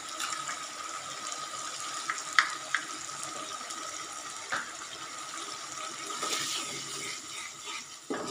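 Spiced onion, chilli and capsicum masala sizzling and bubbling steadily in oil and a little water in a kadhai. A metal spoon knocks against the pan a few times, sharpest about two and a half seconds in.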